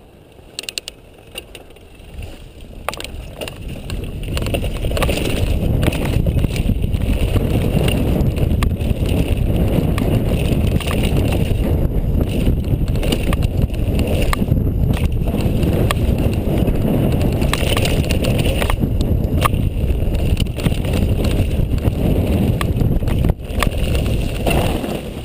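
Transition TR250 mountain bike riding fast down a dirt trail: a heavy rumble of tyres and wind buffeting the microphone, with many sharp clicks and rattles from the chain and frame over the bumps. The rumble grows louder about four seconds in and falls away near the end.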